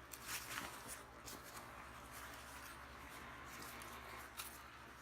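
Light rustling and a few soft handling scuffs as a tactical uniform jacket is handled, over a faint steady hum.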